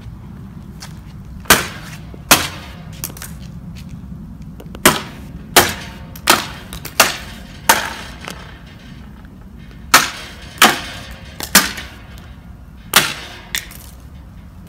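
A hammer striking a basketball backboard panel again and again, about a dozen sharp blows at an uneven pace with a pause in the middle, as the cracked panel breaks away in pieces.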